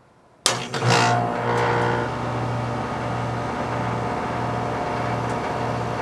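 Central air conditioner outdoor condenser unit starting: the contactor clicks in about half a second in, then the compressor and condenser fan spin up and settle into steady running with a low hum. The unit starts normally on a newly replaced dual run capacitor; the old, bulging one was more than likely the fault.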